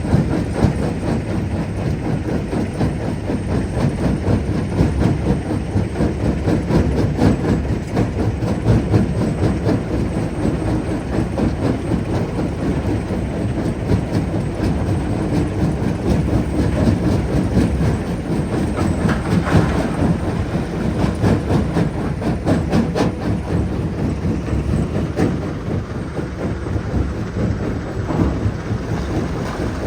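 Jonsson 1208 mobile jaw crusher running under load and crushing rock: a steady heavy rumble with a dense, continuous clatter and knocking of stones.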